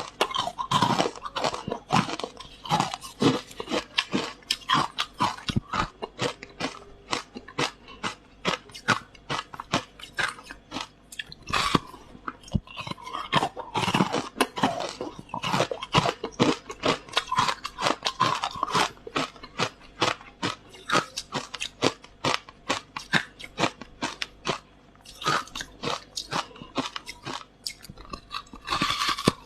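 Freezer frost and ice being bitten and chewed close to the microphone, a continuous run of sharp, irregular crunches.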